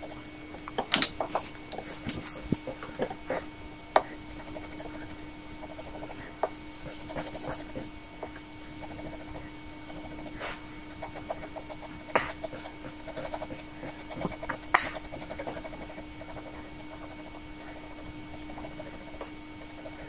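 A metal-nibbed ink pen scratches short hatching strokes on paper, in irregular bursts with a few sharper ticks. A faint steady hum runs underneath.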